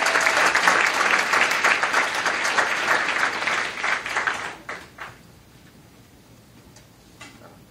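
Audience applauding, a dense patter of clapping that dies away after about four and a half seconds, with a few last claps about five seconds in.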